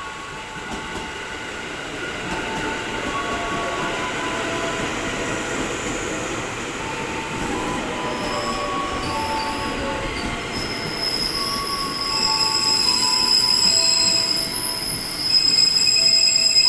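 A KRL electric commuter train runs into the station and along the platform, slowing. From about halfway a high-pitched squeal sets in and grows louder toward the end.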